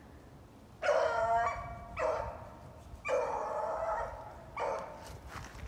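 Beagle baying on a rabbit's trail, giving four drawn-out bawls about a second apart that begin about a second in.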